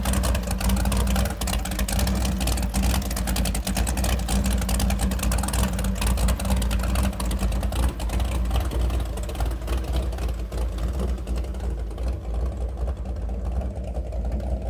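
540 cubic inch big-block Chevy V8 in a jet boat idling through open chrome headers, a steady loping run with a dense crackle. It eases off slightly near the end.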